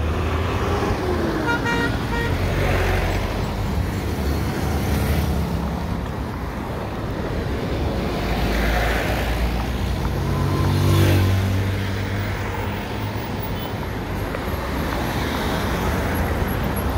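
Road traffic: motor vehicles passing steadily, with a short horn toot about two seconds in and a vehicle passing loudest around eleven seconds in.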